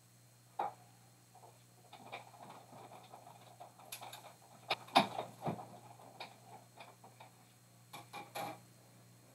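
Faint scattered clicks and knocks, with a cluster of louder knocks about five seconds in, from a Big Shot die-cutting machine being hand-cranked to cut a circle die through cardstock.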